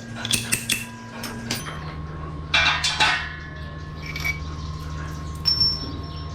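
Hammer tapping on a motorcycle's steering-head bearing, seating the new bearing: several sharp metallic strikes with a ringing tail in the first second and a half, then a clatter of metal on metal about two and a half seconds in, and another knock near five and a half seconds.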